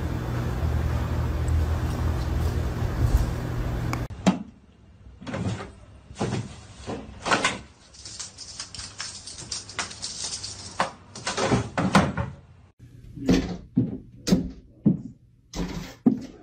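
A steady noise that cuts off about four seconds in, followed by a run of separate knocks and bangs like doors and cupboards, coming faster near the end.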